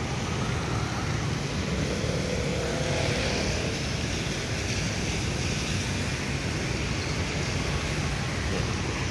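Steady city traffic on a wet road: a continuous hiss of tyres on wet asphalt with the drone of passing cars, motorbikes and buses.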